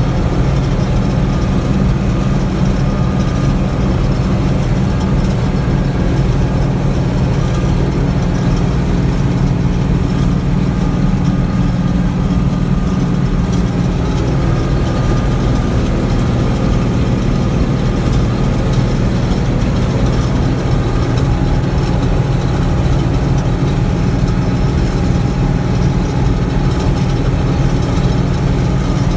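Massey Ferguson 750 combine with its 354 diesel engine running steadily, a constant heavy drone.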